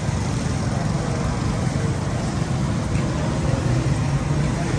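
Steady road traffic noise, cars and motorbikes passing on a wet road.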